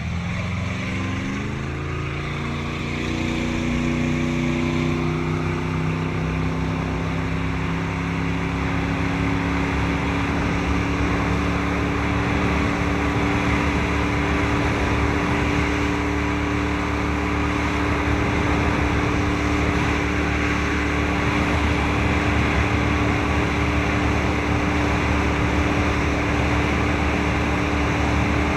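Deck boat's inboard engine heard from on board, rising in pitch over the first couple of seconds as the boat speeds up, then running at a steady cruising speed. A steady rush of wind and water runs beneath it.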